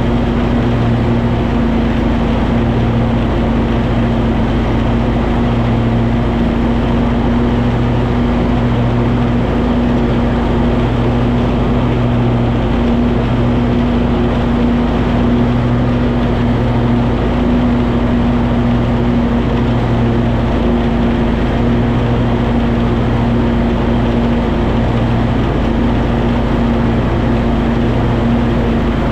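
Cub Cadet 2554 garden tractor's engine running steadily under load while mowing with its mower deck engaged, a constant drone with a slow, regular throb in its low hum.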